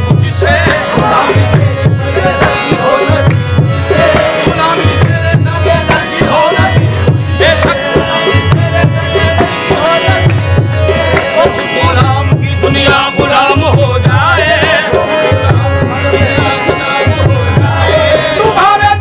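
Qawwali: harmoniums and male voices singing, over a hand drum beating a steady rhythm of deep strokes.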